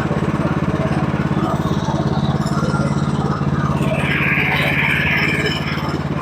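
Sawmill engine running steadily with an even low pulse, and a higher hiss rising over it for about two seconds starting about four seconds in.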